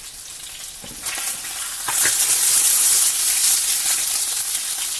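Breaded cod frying in hot oil in a pan: a steady sizzle that grows louder about two seconds in, with a couple of light knocks.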